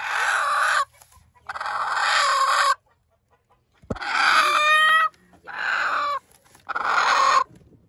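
Broody hen on her nest giving five harsh, drawn-out calls of about a second each, the protest of a sitting hen disturbed on her eggs. A brief knock is heard about four seconds in.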